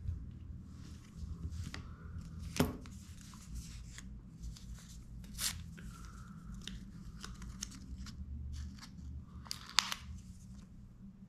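Hands peeling the protective backing from a small silicone screen-protector film and handling the watch and its plastic parts. Light rustling, peeling and small clicks, with two sharper clicks, one a few seconds in and one near the end.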